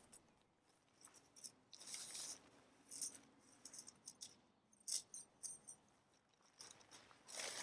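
Faint rustling and crinkling of tent fabric as a rolled-up dome tent is unrolled and spread on grass, in short scattered bursts.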